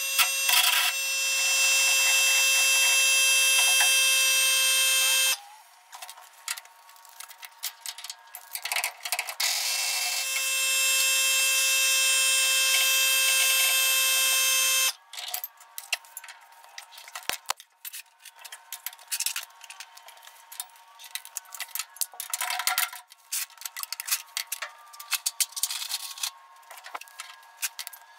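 Pneumatic impact wrench running in two long bursts of about five seconds each, the second starting about ten seconds in, working the rear leaf-spring U-bolt nuts loose. After that, scattered clinks and knocks of tools and metal parts.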